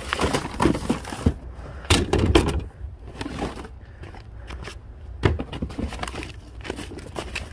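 Rummaging through a plastic storage tote: paper, cardboard packaging and a plastic folder rustling as they are handled, with several sharp knocks of items against the hard plastic bin, the loudest about two seconds and five seconds in.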